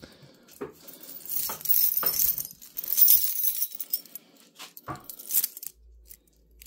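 Light metallic jingling and rattling with a few sharp clicks, loudest in the first half.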